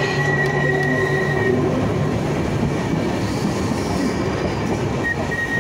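Manx Electric Railway tram, Winter Saloon No.19 hauling open trailer No.44, running along the track, heard from the open trailer: a steady rumble of wheels on rails. A whine of several steady tones fades out about a second and a half in, and a faint high squeal comes back near the end.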